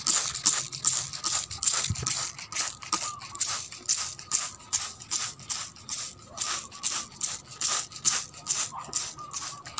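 Hand trigger spray bottle (a Foggy-type sprayer) being pumped quickly, giving an even run of short spray squirts, about three or four a second.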